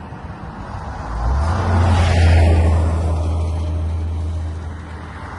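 A motor vehicle passing close by on the road, its engine drone and tyre noise building about a second in, loudest around two seconds, then slowly fading.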